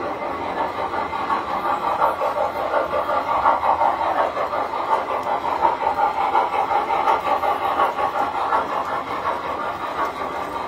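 Tinplate model train running along its track, a steady rattling rumble of wheels and motor as the passenger cars pass, a little louder in the first half.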